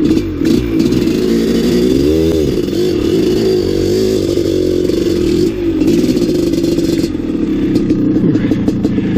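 Maico 700 two-stroke single-cylinder dirt bike engine under load on a steep, rough climb, revving up and falling back several times, with clattering from the bike over the rough ground.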